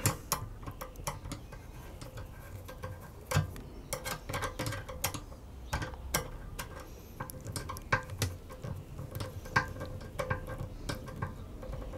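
Screwdriver tightening a Jubilee clip, a worm-drive hose clamp, on a motorcycle fuel hose: small metallic clicks and ticks at an irregular pace as the screw is turned.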